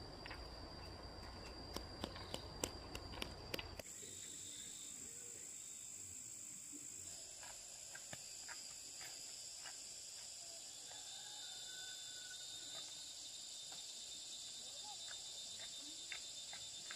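Insects trilling steadily in several high continuous tones, starting abruptly about four seconds in. Before that come a few light knocks and clicks over a low rumble.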